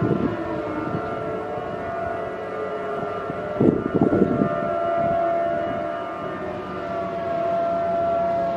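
Several outdoor warning sirens at different distances sounding the steady Alert tone together, their overlapping pitches drifting slowly and swelling and fading as they rotate. A brief louder wavering swell comes about three and a half seconds in.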